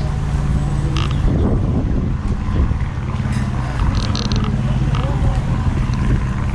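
Motorbike engine running steadily at low speed, with background chatter of voices.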